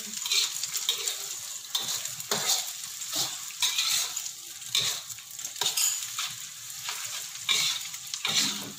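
Sliced sausage and scrambled egg sizzling in hot oil in a wok, with a metal spatula scraping and stirring against the wok at irregular strokes every second or so.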